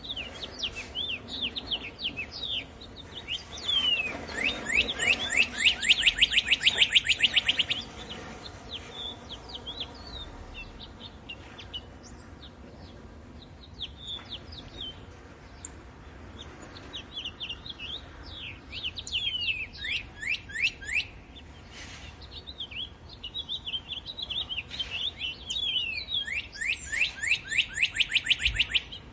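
Songbirds singing in a wood: quick falling whistled notes, with a loud rapid run of them about four seconds in and again near the end, and scattered quieter calls in between.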